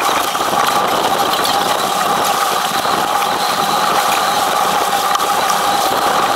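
Steady rush of wind and water on a racing yacht sailing hard through spray, with a few constant tones running through the noise.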